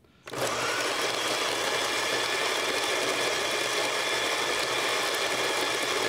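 Solis Scala Zero electric burr coffee grinder grinding whole coffee beans at a mid-range setting of about 15, running on its timer. The motor starts about a quarter second in and runs steadily with an even whir over the grinding of the beans.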